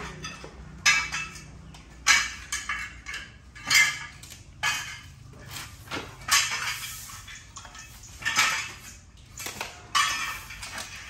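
Aluminium window-frame profiles clinking and scraping against each other and the concrete floor as they are shifted into line, in irregular sharp clatters every second or two.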